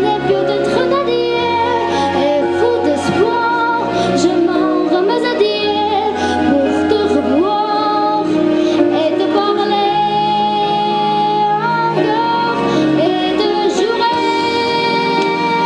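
A girl singing a solo into a microphone over instrumental accompaniment, her voice gliding between held notes with vibrato.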